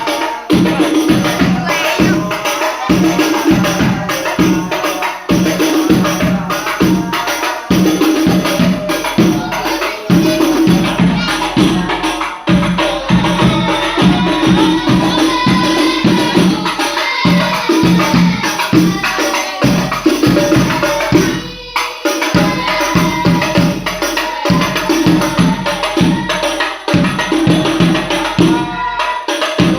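Sholawat devotional music: rebana frame drums beaten in a dense, steady rhythm, with a momentary break about two-thirds of the way through.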